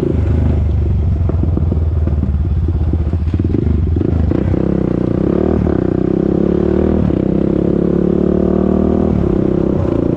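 A 2001 Honda TRX400EX ATV's single-cylinder four-stroke engine running under way. Its pitch climbs and then drops briefly several times as the throttle and gears change.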